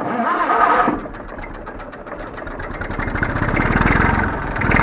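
IMT 533 tractor's three-cylinder diesel engine comes in abruptly and runs loud for about a second, settles, then revs up from about two and a half seconds in as the throttle is opened. It picks up revs somewhat slowly, which the owner puts down to its Bosch injection pump.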